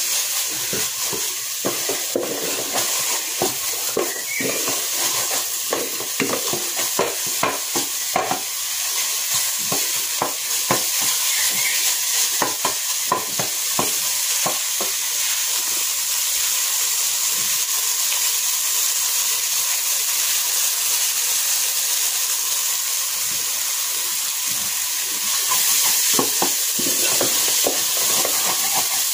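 Scrambled eggs with diced tomato and onion frying in an aluminium pot with a steady sizzle, while a wooden spoon stirs and scrapes them against the pot in frequent short strokes, densest in the first half. The eggs are being cooked until they dry out and break into crumbs.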